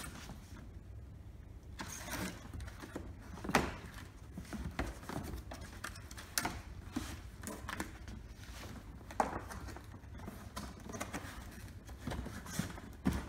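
Stiff cardboard display box being folded into shape on a table: irregular rustling, creasing and scraping of the panels, with sharper knocks about three and a half seconds in and again around nine seconds, over a steady low hum.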